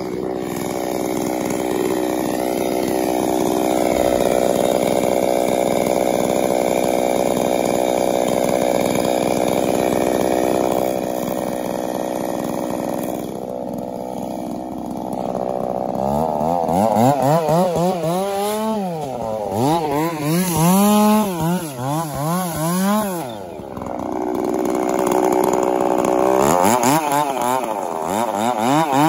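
Chainsaw cutting into a large pine log. It runs at a steady pitch under load for about the first half, then the engine speed rises and falls over and over through the rest.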